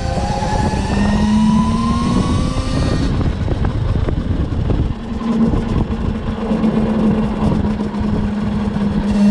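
Electric motorcycle with a QS138 motor under way. Its motor whine rises in pitch over the first three seconds as it accelerates, then settles into a steady hum, over heavy wind rumble on the microphone.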